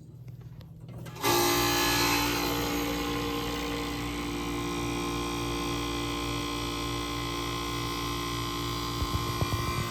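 An electric motor-driven appliance switches on about a second in and settles into a steady, many-toned hum, loudest at the moment it starts. A few low knocks come near the end.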